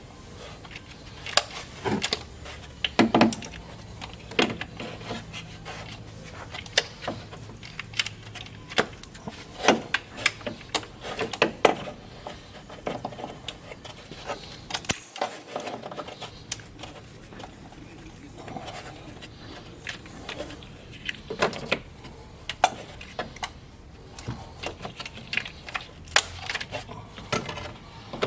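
Irregular metallic clinks, clicks and knocks, as of tools and small metal parts being picked up and set down, over a faint low hum.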